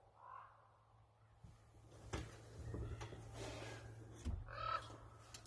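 Common ravens calling: a faint croak at the start and a louder one about four and a half seconds in, over rustling and small knocks close to the microphone.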